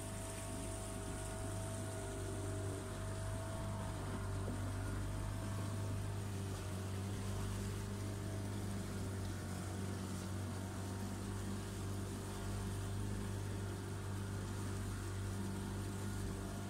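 Motorboat engine running steadily under way, a constant low hum with a few fainter steady higher tones over rushing water and air noise.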